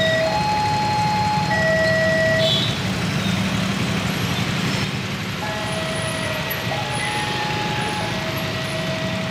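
Railway level-crossing alarm sounding two alternating tones, high then low, each held about a second, with a pause of about three seconds in the middle. Under it is the steady hum of traffic engines.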